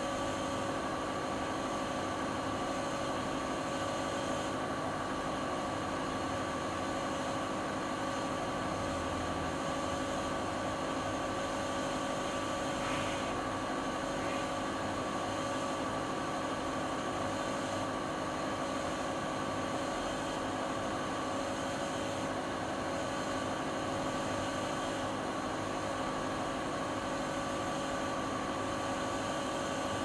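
Siemens iQ300 front-loading washing machine on its spin cycle: the drum and iQdrive motor spin at a steady speed, giving an even hum with a held whine over a rushing noise.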